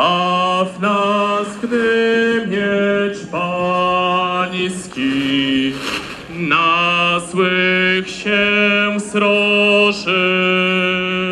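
A man singing a slow liturgical chant in long held notes, with short breaks between phrases.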